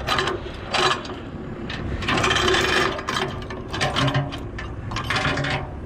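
Mini excavator working, with rough scraping and grinding bursts about a second apart over the hum of its engine.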